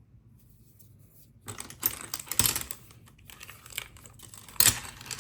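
Ratcheting combination wrench being worked, its ratchet clicking rapidly, starting about a second and a half in, with a couple of louder clacks among the clicks.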